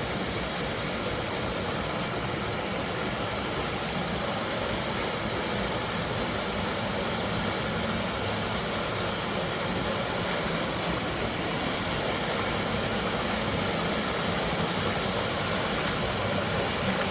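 Waterfall pouring down, a steady rushing noise of falling water that does not change.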